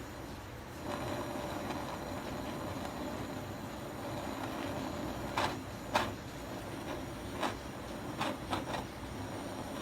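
Gas torch flame running steadily while it heats the aluminium refrigerator evaporator around a puncture, so the aluminium filler will bond smoothly. A few sharp taps or clicks come in the second half.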